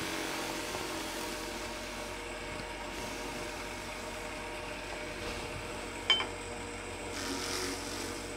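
Wood lathe running steadily as a skew chisel rounds over the end of a foam sleeve on a spinning dowel. There is a sharp tick about six seconds in.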